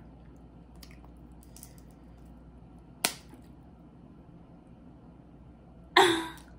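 Shells of boiled shellfish cracking as they are peeled by hand: one sharp snap about three seconds in, and a louder crack near the end that fades quickly.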